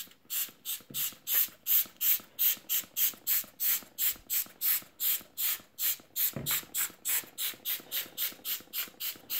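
Trigger spray bottle being pumped over and over, a short hissing squirt about three times a second.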